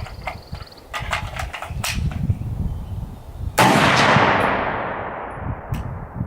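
A Romanian PSL rifle fires a single round of factory 7.62x54R steel-case ammunition about three and a half seconds in, and the report echoes and fades over the next two seconds. Before the shot there are a few light clicks.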